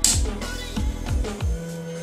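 Background electronic music with a steady kick-drum beat, about two and a half beats a second, over a held low tone.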